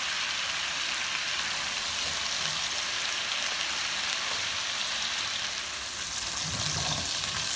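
Hot oil sizzling steadily as chicken pieces fry in a nonstick pot.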